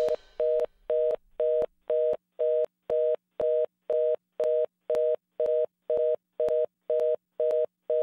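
Telephone busy signal: a two-pitched beep repeating evenly about twice a second.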